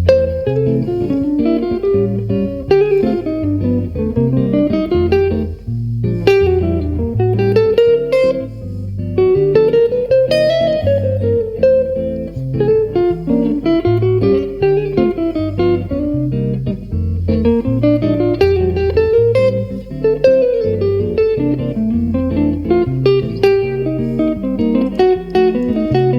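Music: a guitar playing fast bebop jazz lines, the notes running up and down in arcs over steady low bass notes.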